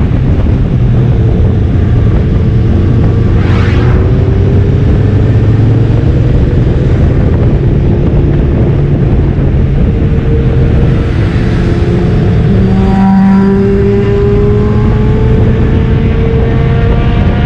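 Motorcycle riding at highway speed, heard from on the bike: heavy wind rumble on the microphone over the engine, whose note rises slowly as it accelerates. A vehicle whooshes past about three and a half seconds in.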